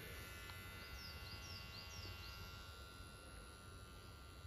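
Faint bird song outdoors: a quick phrase of about six short, high, falling chirps about a second in, over quiet background.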